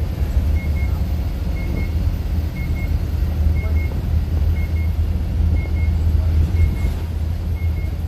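Iveco diesel engine and drivetrain cruising in eighth gear of its 8-speed manual gearbox, heard from inside the cab as a steady low rumble with road noise. A faint double beep repeats about once a second.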